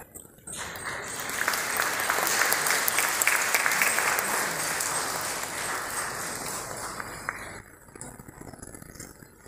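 Audience applauding with many hands clapping. It builds over the first second or two and dies away about three-quarters of the way through.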